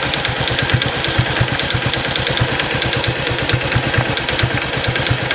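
An engine idling with an even, rapid low pulse; it cuts off suddenly near the end.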